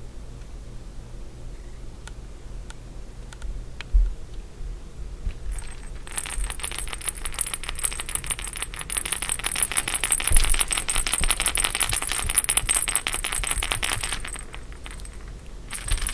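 A plush monkey toy's built-in rattle being shaken rapidly, a dense, bright jingling that starts about six seconds in and lasts about eight seconds, followed by one more short shake near the end. A couple of soft handling thumps come before it.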